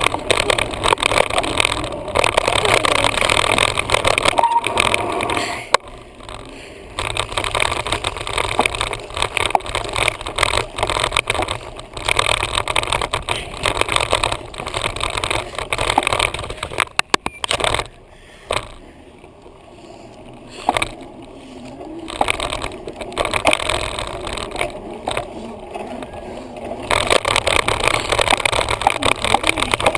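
Wind rushing over the microphone of a camera mounted on a moving bicycle, with knocks and rattle from the mount over bumps. It eases off for a while past the middle, then builds again near the end.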